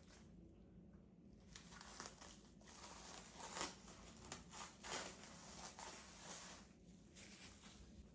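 Faint crinkling and rustling, as of wrapping being handled, in a run of short bursts.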